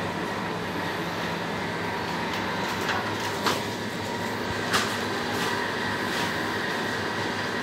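Steady mechanical hum and hiss of a supermarket's open refrigerated display cases and air handling, with a few faint steady tones. A few short clicks and knocks break in about three to five seconds in.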